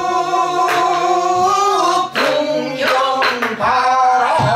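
A woman singing pansori-style, holding long wavering notes, accompanied by sori-buk barrel drums struck with sticks. A few sharp drum strokes land under the singing.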